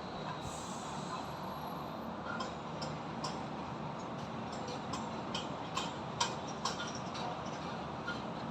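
Steady drone of traffic with irregular sharp metallic taps and clanks from building construction work, the loudest a little past the middle.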